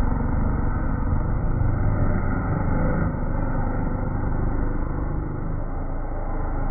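Youth motocross bikes racing on a sand track, a steady, loud engine din with a heavy low rumble.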